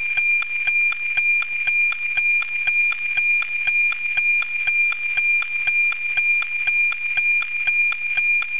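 NOAA-19 weather satellite APT signal, FM-demodulated to audio by an RTL-SDR receiver: a steady high 2.4 kHz tone with a fast, even ticking of line-sync pulses. This is the sound of the image data being received live, two picture lines every second.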